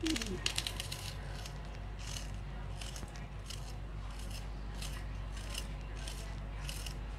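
Small knife slicing through a raw onion held in the hand, a faint crisp cut about twice a second.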